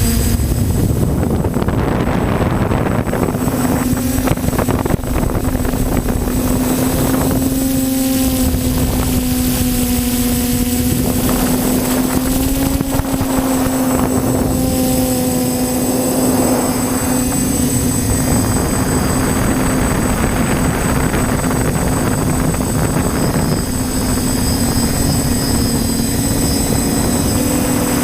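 TBS Discovery quadcopter's electric motors and propellers humming steadily in flight, the pitch drifting slightly up and down with the throttle, under surges of rushing air noise.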